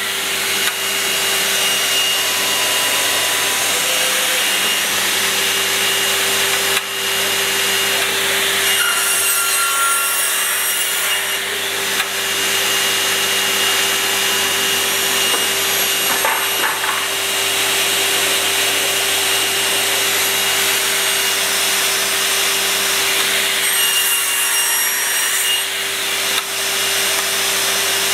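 Graule angle and mitre saw running, its blade cutting through a softwood board, with a steady motor tone under the cutting noise.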